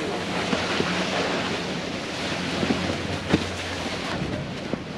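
Steady rushing wind noise on the microphone, with a faint low hum and a few light knocks.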